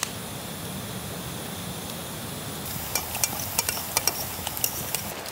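Campfire burning with a steady low rush. From about three seconds in, hot water pours from a kettle into a metal mug while a fork stirs the soup, clinking against the mug about ten times.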